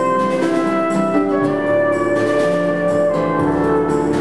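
Live instrumental ensemble music: a brass horn and a stage keyboard playing sustained melody notes that change every half second or so.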